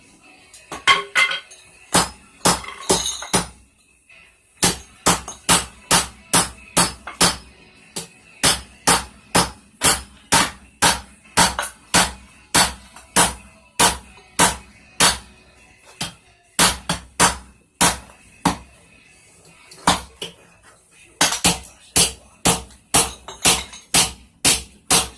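Hand hammer striking a hot railroad spike on an anvil, about two blows a second in runs with short pauses between, each blow leaving a faint metallic ring.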